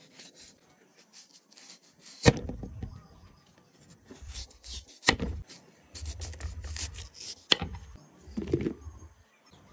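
Kitchen knife slicing fruit (lime, peeled green mango) on a wooden chopping board: three sharp knocks of the blade on the board, the first the loudest, with rubbing and scraping in between.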